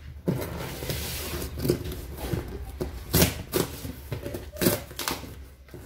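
Cardboard shipping box being opened by hand: its flaps and packing tape tearing and scraping, with several sharp knocks of the cardboard.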